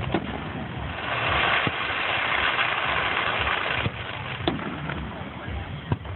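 Aerial fireworks display: a handful of sharp pops and bangs from bursting shells over a constant low rumble and a dense hiss that drops away about four seconds in.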